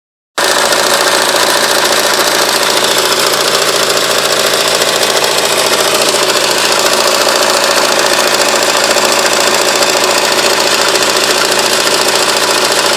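Honda CR-V N22A2 2.2 diesel engine running steadily with a rapid, even, pot-like knock: the sign of a failed crankshaft damper pulley.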